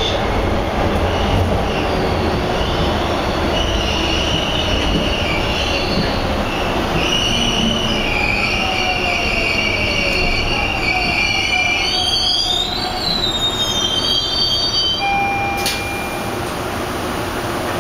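Bombardier T1 subway car running on the rails, heard from inside the car: a steady rumble of wheels and running gear. From about four seconds in, high-pitched wheel squeal comes in wavering, gliding tones and dies away about fifteen seconds in.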